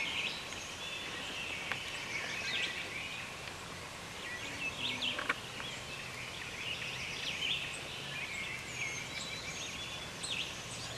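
Wild turkeys calling in a field against a chorus of small songbirds chirping and singing. A single brief click comes about halfway through.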